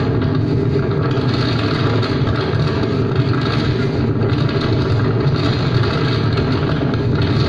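Small speedboat's engine running steadily under way, mixed with a constant rush of wind and water.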